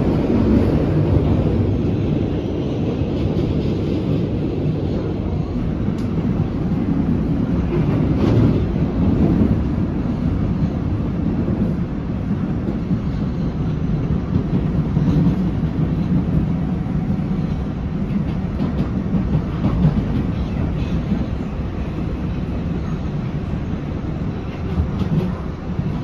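Steady rumble of a PATH PA5 subway car running at speed, heard from inside the car: wheels on rail and running gear, with a couple of brief clicks in the first third.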